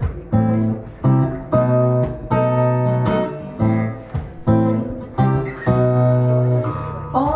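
Acoustic guitar strumming chords as a song's instrumental introduction: about ten strokes, each chord left ringing before the next.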